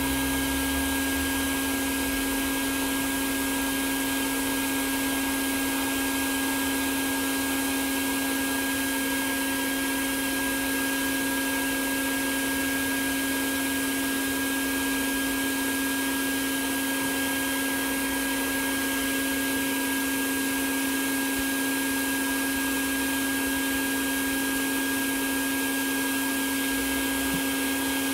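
Bee vacuum running steadily, its hose sucking honeybees off the comb of a swarm, with a constant low hum and airflow hiss.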